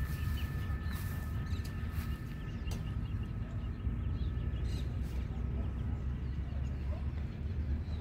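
Outdoor ambience: a steady low rumble with faint, scattered bird chirps, and a thin steady high whine that fades out about six seconds in.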